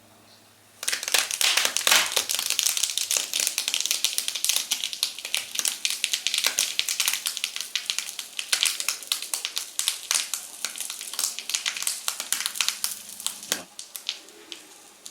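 Bubble wrap crackling and popping densely as a red-hot metal ball melts into it. The crackle starts about a second in and thins out near the end.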